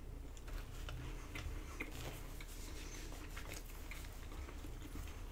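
Faint chewing with the mouth closed on a mouthful of cheese-stuffed garlic breadstick: soft, scattered wet clicks of the mouth and tongue, several a second.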